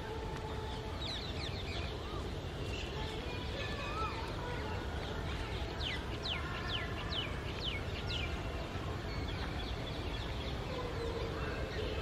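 Wild birds chirping over a steady low background rumble, with a run of about seven quick, high, downward-sweeping chirps about halfway through.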